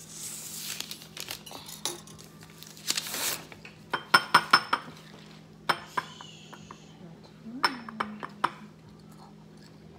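An egg knocked against the rim of a glass mixing bowl to crack it: sharp clinks with a short glassy ring, a quick run of about four near the middle and a few single taps later. Handling rustle comes before them.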